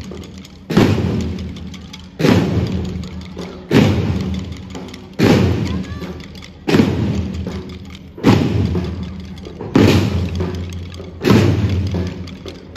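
A drum group of side drums and a bass drum beating a slow, steady march: one loud stroke about every second and a half, each ringing out before the next.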